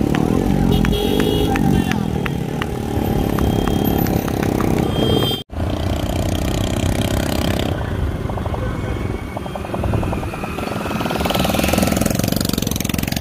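Motorcycle engines running along a road alongside the runners, with music playing as well. There is a brief drop-out about five seconds in, and near the end a motorcycle approaching grows louder.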